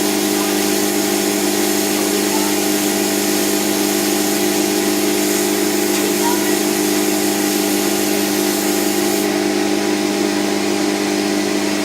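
A power tool running steadily to spin a fidget spinner at very high speed: a steady multi-tone motor hum over a rushing hiss. The highest part of the hiss drops away about nine seconds in.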